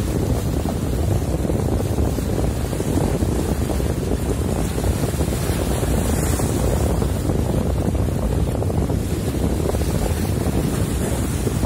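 Steady wind rumbling on the microphone, with water and boat noise underneath.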